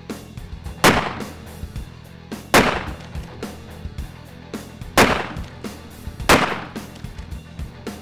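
Four 12-gauge pump-action shotgun shots, each a sharp blast with a short ringing tail, spaced one to two and a half seconds apart.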